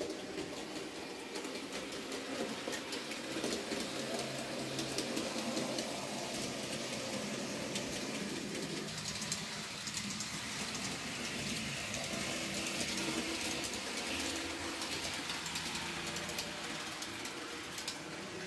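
N-scale model train running along the track: the locomotive's small electric motor hums steadily, with fine, rapid clicking from the wheels on the rails.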